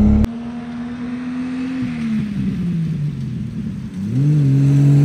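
Jeep engine driving under throttle. The level drops suddenly just after the start. Its pitch holds steady, then falls as it eases off about two seconds in, and rises again as it speeds up about four seconds in. It is running on gasoline mixed with vodka, which the driver hears as a slight sputter at low revs.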